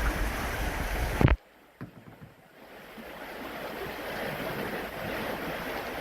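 Rushing creek water around a kayak with heavy rumble on the microphone, ending in a sharp knock about a second in; the sound then drops away suddenly and quieter water noise slowly builds again.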